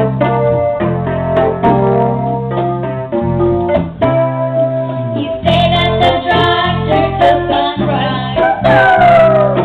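A live home band playing a song: electric keyboard chords, joined by children's voices singing about halfway through, with one sung note sliding down near the end.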